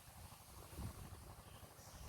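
Near silence, with a faint low rumble of wind on the microphone.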